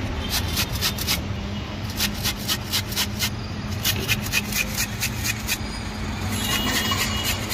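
Raw cauliflower florets grated on a stainless steel box grater: quick rasping strokes, about four a second, in several runs with short pauses between.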